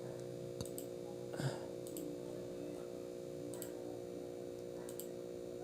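A few scattered computer mouse clicks over a steady electrical hum.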